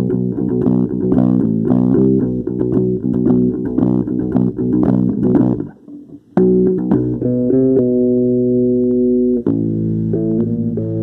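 Guitar music: a run of quick plucked notes, a brief break about halfway, then long held notes that step between pitches.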